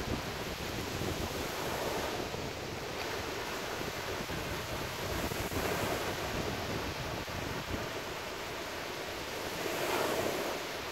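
Small ocean surf breaking and washing up the beach, swelling a few times, about two, six and ten seconds in. Wind buffets the microphone with a low rumble underneath.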